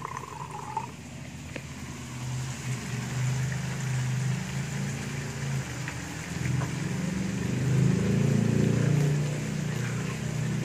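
Ground spice paste sizzling as it is stir-fried in a wok, a steady frying hiss, under a low droning hum that swells loudest about eight seconds in.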